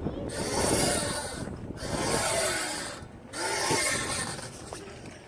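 Playground swing in motion: its chain hangers creak and squeak, and air rushes over the microphone in a swell on each pass, about one every second and a half.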